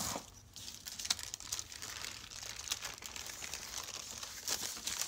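Thin, damp paper crinkling and crackling as it is lifted and turned over by hand.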